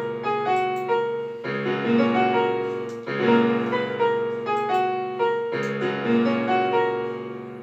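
Casio digital keyboard played with a piano sound: a slow chord passage with a melody over it, new chords struck every couple of seconds, the last one left to die away near the end. Picked up by a phone's built-in microphone.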